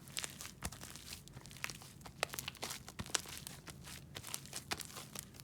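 Sticky slime, with shaving cream worked into it, being kneaded by hand: irregular sticky pops and crackles several times a second.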